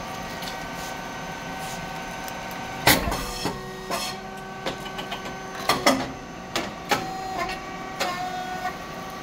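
Rice cake popping machine running: a steady mechanical hum with fixed tones from its motor, pump and fan. A loud sharp bang comes about three seconds in, followed by a series of smaller clicks and knocks.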